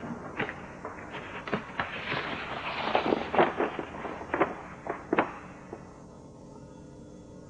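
Large stiff paper sheets being handled and unrolled: a run of crackling rustles and sharp crinkles over the first five seconds or so.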